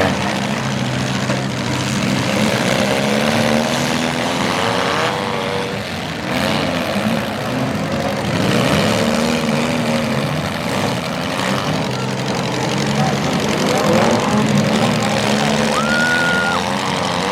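Several front-wheel-drive demolition derby cars' engines revving up and down over one another, with a few knocks mixed in.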